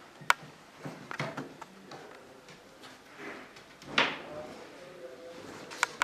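Sharp clicks and knocks of cabinet parts being handled and fitted together, with a louder knock and rustle about four seconds in and two sharp clicks near the end.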